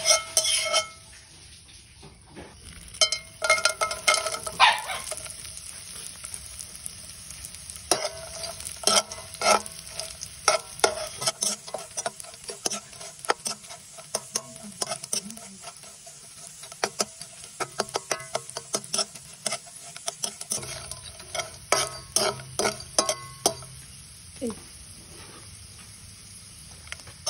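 Dried anchovies sizzling as they fry in hot oil in a wok, with a metal spatula scraping and clinking against the pan again and again as they are stirred.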